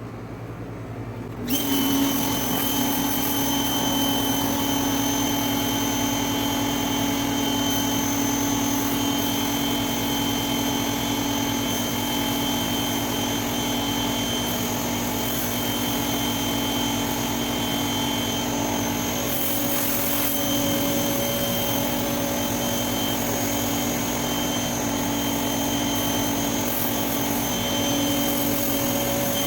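Greenworks 2000 psi electric pressure washer kicking on about a second and a half in, then running steadily: the motor and pump hum with a constant whine over the hiss of water from a Ryobi surface cleaner spraying concrete.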